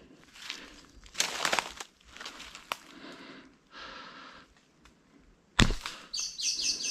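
Rustling and crackling movement through brush, then a single sharp crack about five and a half seconds in. Just after it a bird starts calling in a rapid run of high chirps near the end.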